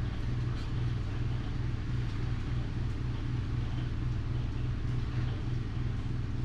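Steady low mechanical hum with a light even hiss over it, pulsing slightly and never changing.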